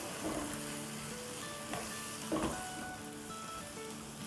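Ground mutton sizzling steadily in a nonstick wok on a high gas flame, stirred with a silicone spatula that scrapes the pan a few times.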